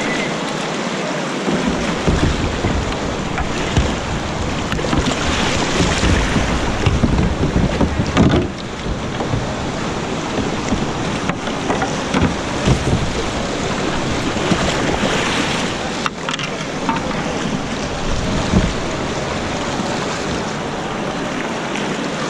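Whitewater rushing and churning around a kayak in a rocky river rapid, with a few louder splashes. Wind buffets the microphone.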